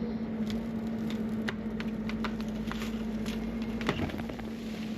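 Bobcat E55 mini excavator running with a steady hum, with scattered sharp clicks and knocks, one louder knock about four seconds in.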